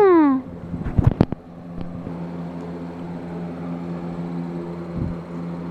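Steady low hum of several fixed pitches, like a motor running, with the end of a shouted word falling in pitch at the very start and a few sharp clicks about a second in.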